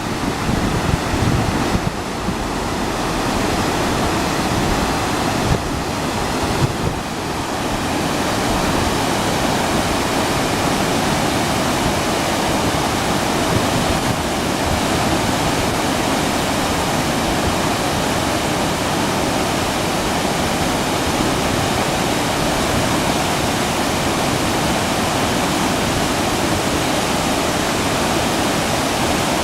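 The Tedori River swollen and muddy after a typhoon, its water rushing with a steady, loud noise. Wind buffets the microphone unevenly for the first several seconds before the sound settles.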